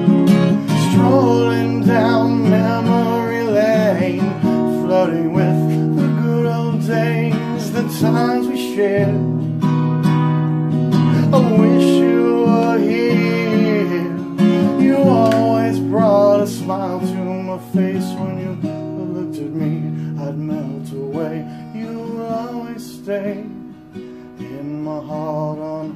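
Acoustic guitar strumming chords with a picked melody over them in a folk-country song, getting quieter near the end.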